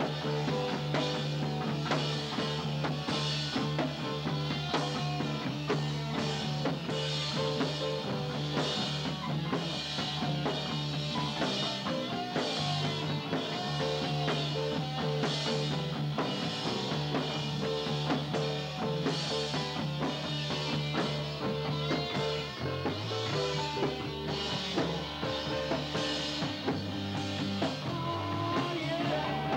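Rock band playing live: a drum kit with cymbals struck about twice a second, electric guitar and bass guitar holding low notes that change pitch a few times.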